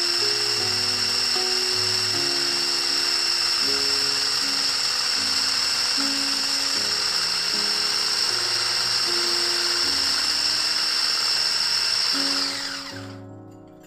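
Electric hand whisk motor running with a steady high whine as its balloon whisk beats frothy egg whites in a glass bowl. Near the end the motor is switched off and its whine slides down and fades. Background music plays throughout.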